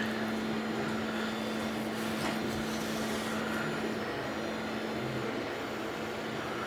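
Steady mechanical hum with a constant low tone that drops out about four seconds in, over a faint whirring hiss.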